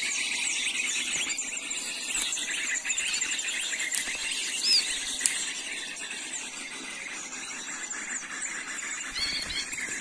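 Dense, rapid high-pitched twittering and chirping of small birds, the MP3 bird-call recording played as a lure for lime-stick trapping, going on without a break. A sharp click comes about five seconds in.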